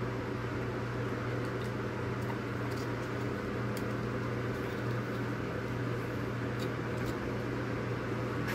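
Steady low mechanical hum, with a few faint clicks as the plastic check valve and pump housing are handled.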